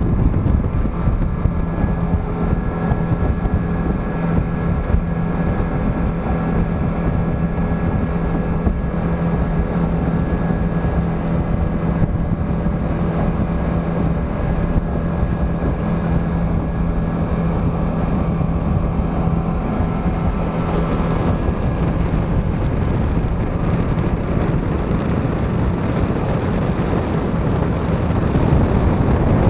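Passenger boat's engine running steadily under way, a constant drone, with wind buffeting the microphone. The engine drone grows fainter about two-thirds of the way through.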